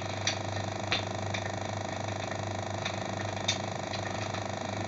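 Steady hum with a few faint, scattered clicks.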